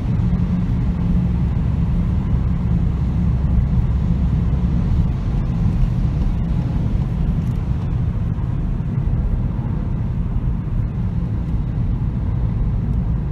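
Cabin noise of a VW Golf 7 GTD with its 2.0 TDI diesel at highway speed: a steady low rumble of engine and tyres while the car slows gently from about 120 km/h.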